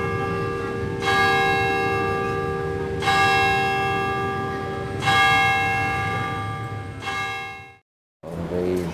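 Church bell tolling, four strokes about two seconds apart, each ringing on into the next; it cuts off suddenly near the end.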